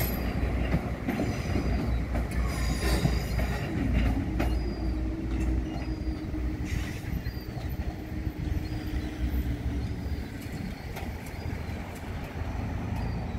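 A Northern Ireland Railways CAF diesel multiple unit running away along the track, its engine and wheel rumble slowly fading. The wheels squeal in the first few seconds, and a steady engine tone follows.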